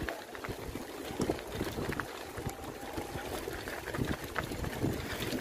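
Mountain bike tyres rolling over a loose gravel road: a continuous gritty crunching with scattered small pops and clicks of stones, over a low rumble.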